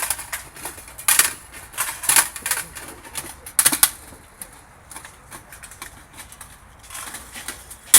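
Sharp metallic clicks and clatter of M16 rifles being handled and cleared: a few distinct snaps about a second apart, then quieter ticking.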